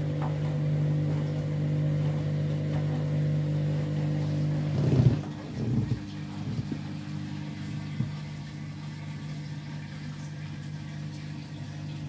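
Candy front-loading washing machine with its drum turning fast, motor humming steadily; about five seconds in there is a brief louder clatter and the drum stops, leaving a quieter steady hum. The stop is the machine cutting the spin short because the tangled load is unbalanced.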